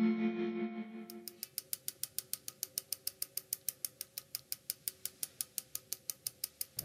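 Guitar music with heavy effects fading out in the first second, followed by a fast, even ticking of about five clicks a second.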